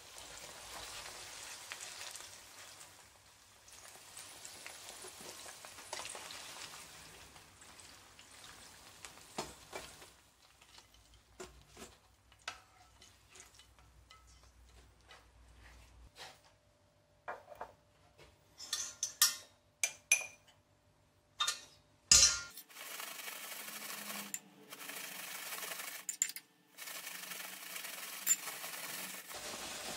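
Fried potato chunks tipped from a frying pan into a stainless steel colander lined with paper towel: a run of sharp metal clinks and knocks, the loudest sounds here, about two-thirds of the way in, then a steady rustle as the potatoes are tossed in the colander.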